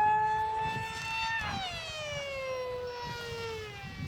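Motor and propeller of a scratch-built high-speed RC plane, a steady high whine that starts dropping in pitch about a second and a half in and keeps falling until it fades.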